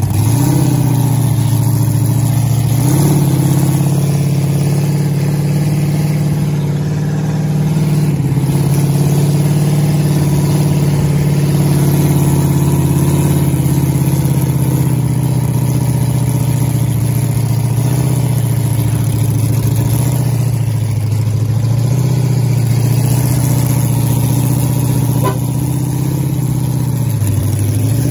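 Monster-truck ride truck's engine running loud and steady while under way, heard from the passenger cage. Its pitch shifts up and down several times as the driver speeds up and eases off.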